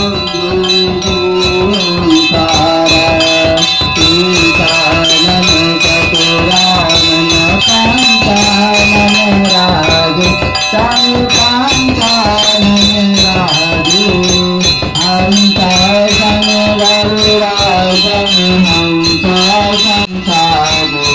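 Music with a singing voice over a fast, steady beat of rattling percussion and high ringing tones.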